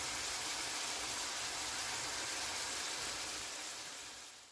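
Thin-sliced beef frying in a non-stick pan, with a steady sizzle that fades out near the end.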